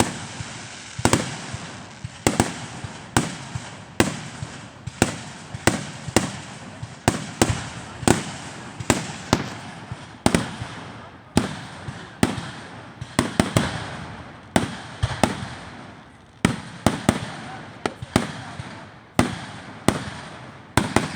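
Fireworks going off in a continuous barrage, with sharp bangs about one to two a second, each trailing off in echo.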